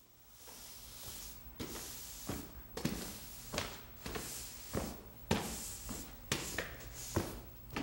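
Push broom sweeping a wooden floor in repeated strokes: a hiss of bristles with a knock roughly every half to three-quarters of a second, over a low steady hum.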